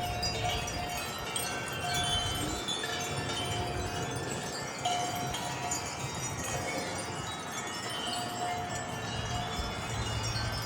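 Several wind chimes ringing continuously in strong, gusty wind, many clear tones overlapping and tumbling over one another. A low wind rumble sits underneath.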